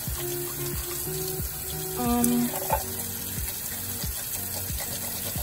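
Tap water running steadily into a sink onto a silicone brush-cleaning mat, under soft background music that has a brief louder note about two seconds in.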